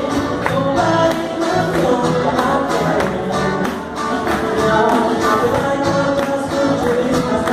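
Live band playing a pop song with a steady beat: a male vocalist singing into a microphone, backed by guitar, drum kit and congas.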